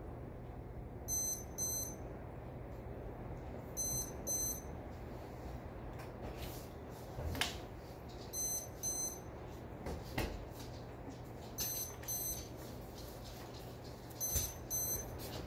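A lightning detector beeping in pairs, high-pitched, five double beeps roughly three seconds apart, each pair signalling a lightning strike within 15 miles. Underneath runs the steady hiss of heavy rain, with a couple of short sharp knocks.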